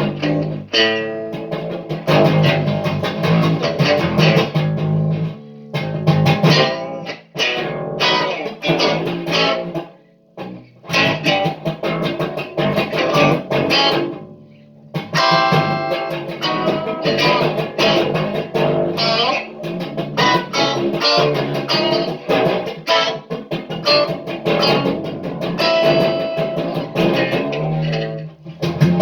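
Guitar playing: a run of plucked notes and chords, broken by two short pauses about ten and fourteen seconds in.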